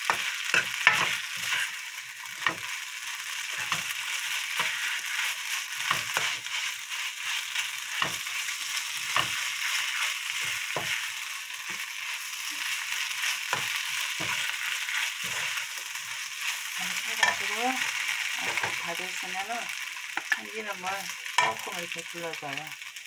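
Kimchi fried rice sizzling steadily in a nonstick frying pan as it is stirred and turned with a spatula. The spatula knocks and scrapes against the pan again and again.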